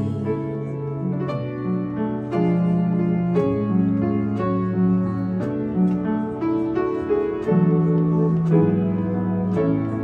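Live piano and keyboard playing a slow instrumental passage of a song: chords over long-held bass notes, changing about once a second, with no singing.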